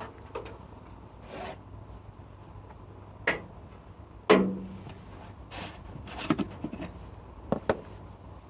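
Scattered scrapes, rubs and knocks from working with tools and objects by hand, the loudest a sharp knock a little past four seconds in that rings briefly.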